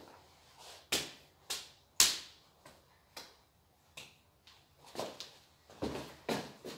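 Hand claps and slaps of a children's clapping-handshake routine: about a dozen sharp strikes at an irregular pace, the loudest about two seconds in, bunching up near the end.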